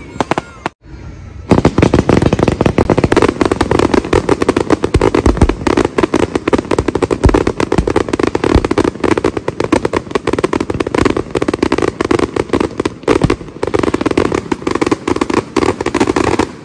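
Fireworks finale: a dense, rapid barrage of shell bursts, bangs and crackle going off with no pause. It starts about a second and a half in and cuts off suddenly just before the end.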